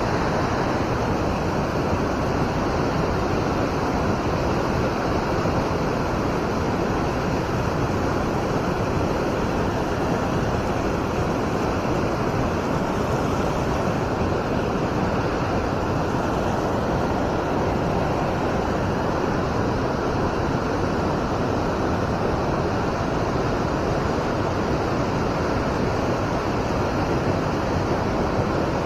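Steady rushing of flowing river water, an even unbroken hiss.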